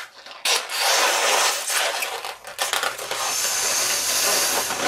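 Pink latex modelling balloon being blown up by mouth: a steady rush of breath into the balloon with latex rubbing against the hands as it fills into a spiral, in two long blows with a short break about halfway.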